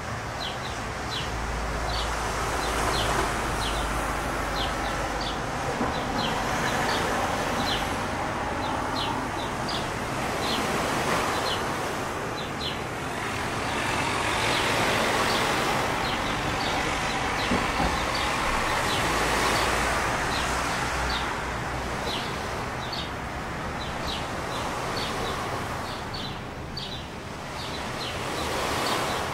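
Steady rushing motor noise that swells and fades, with gusts of wind rumbling on the microphone and short high chirps repeating about once or twice a second.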